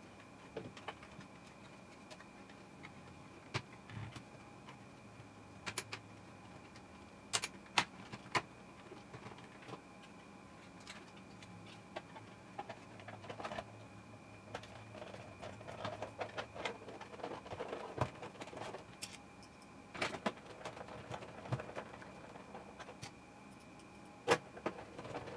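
Scattered clicks, taps and rustling of hands handling and reassembling a plastic emergency standby light casing, with small sharp knocks every few seconds. A faint steady high tone sits behind it.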